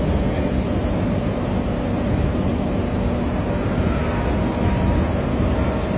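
Steady running rumble of a passenger train in motion, heard from inside the coach.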